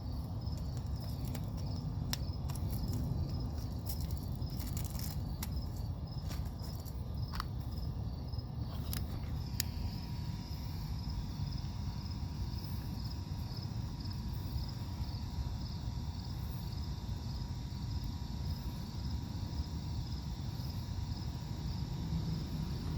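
Insects chirping in a steady high-pitched rhythm, about two chirps a second, over a low rumble. Scattered sharp clicks come in the first ten seconds.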